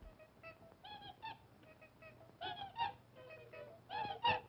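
Old cartoon soundtrack of short pitched notes in rhythmic groups, growing louder near the end.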